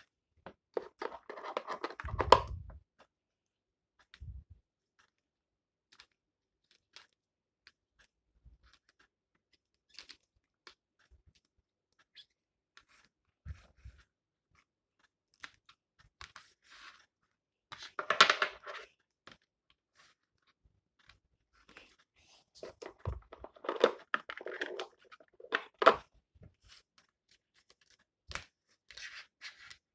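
Trading-card foil packs crinkling and tearing in short bursts, about a second in, again in the middle and for a longer stretch near the end, with light clicks and taps of cards being handled in between.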